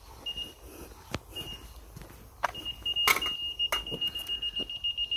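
Laser receiver on a levelling staff beeping: a couple of short high beeps, then about halfway through a fast, almost continuous beeping as it picks up the laser beam, showing where the beam falls against the grade. A few sharp knocks from the staff being set down on the road.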